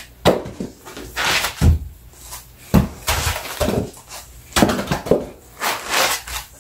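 Foam packing blocks rubbing and scraping against a cardboard box as they are pulled out and set down, with several dull thumps, the heaviest about a second and a half in.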